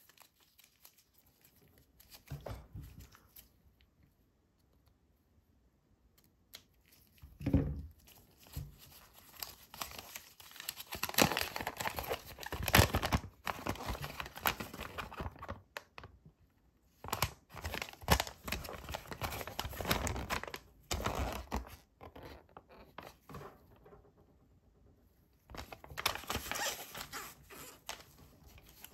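Folded paper leaflet from a LEGO minifigure pack being unfolded and smoothed flat, crinkling and rustling in bursts, busiest in the middle stretch and again near the end. A dull thump comes about seven and a half seconds in.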